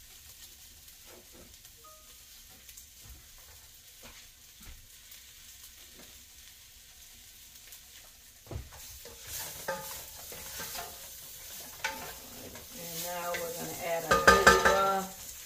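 Carrots, tofu and onion sizzling faintly in a pot on the stove, then a wooden spoon stirring and scraping against the pot from about halfway, loudest near the end.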